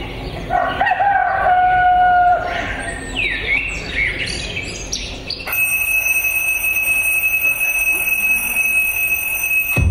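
A rooster crowing once, then a few short bird chirps. About five and a half seconds in, a phone alarm starts: one steady, high electronic tone.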